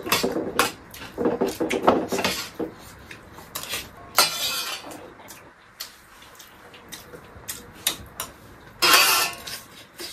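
Steel spoon clinking and scraping against a metal plate during a meal, a run of small clinks with two longer scrapes, about four seconds in and near the end.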